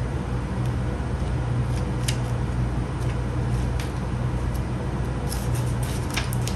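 Steady low mechanical hum and rumble, with a few faint light clicks, a small cluster of them in the second half.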